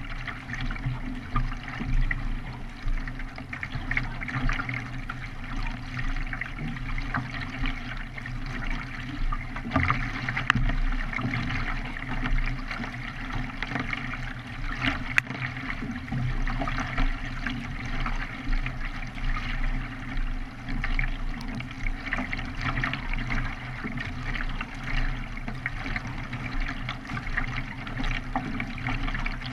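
Water splashing and rushing as a K1 racing kayak is paddled, the paddle blades dipping in and out of the water.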